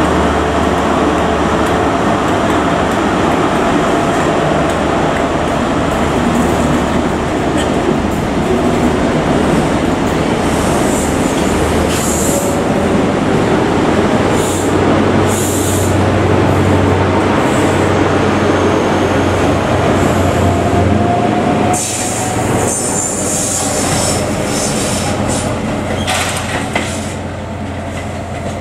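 Diesel engine of a GWR Class 43 HST (InterCity 125) power car, an MTU V16, running steadily as the train moves past along the platform, with the wheels rumbling on the track and brief high wheel squeals. About 22 seconds in the sound changes suddenly to another HST approaching with its engine running.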